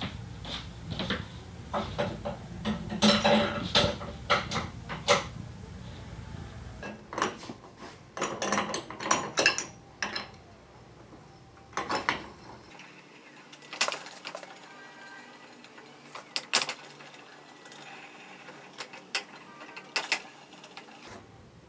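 Metal clicks, clinks and knocks of a threaded headset press tool being fitted through a scooter head tube and turned by hand to press in the headset cups. The knocks come thickest in the first few seconds and then come every second or two.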